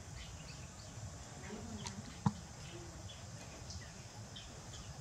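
Soft clicks and light handling noises from baby macaques picking up and eating fruit, with one sharper click a little past two seconds in and a few faint high squeaks.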